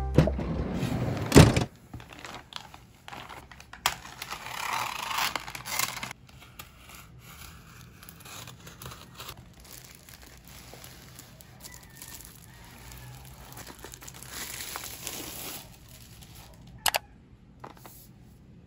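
Cardboard mailer and plastic packaging being handled and opened: quiet tearing, crinkling and rustling in two longer stretches, with a few sharp clicks. Background music cuts off about a second and a half in.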